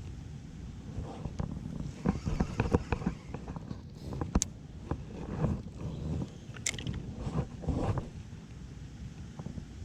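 Strong wind buffeting the microphone, with scattered knocks and clicks from handling gear in a kayak, two sharper clicks about four and a half and six and a half seconds in.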